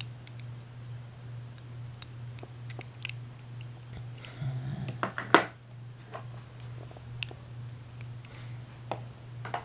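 Small clicks and scrapes of lock parts and tools being handled while a deadbolt cylinder is taken apart, over a steady low hum. The loudest click comes about five seconds in.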